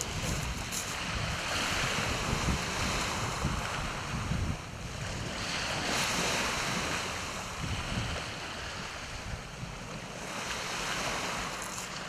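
Small waves breaking and washing up a shingle beach, swelling and fading about every four seconds, with wind buffeting the microphone.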